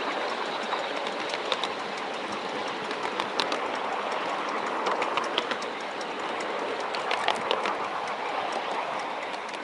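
Miniature railway train running along the track: a steady running noise with irregular sharp clicks of the wheels over the rail joints.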